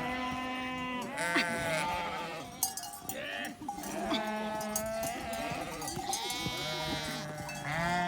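A flock of sheep bleating, several long wavering calls overlapping one after another.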